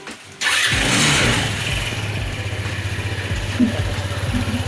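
Rusi RFI 175 scooter engine starting suddenly about half a second in, then settling into a steady idle.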